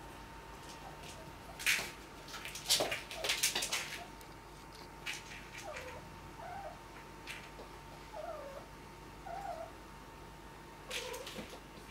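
A young tabby cat making short chirping trills ("mrrr") while it plays with a small toy, five or six brief calls in the second half. About two seconds in, a run of sharp clatters and knocks on the floor is the loudest sound.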